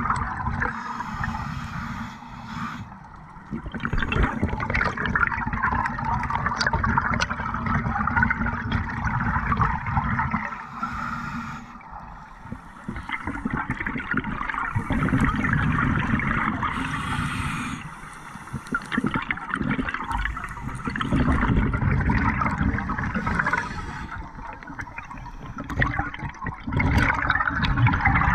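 Scuba diver's regulator breathing underwater: a gurgling rush of exhaled bubbles that swells and fades in slow breaths several seconds apart.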